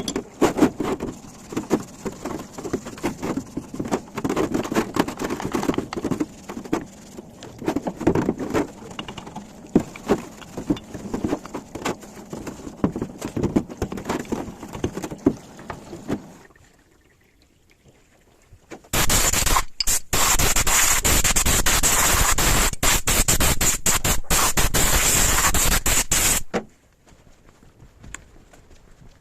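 Metal starter-motor parts being handled and worked on, with many irregular clicks, taps and scrapes. After a short pause comes a loud, steady rushing hiss for about seven seconds, with a few brief dropouts, which then cuts off suddenly.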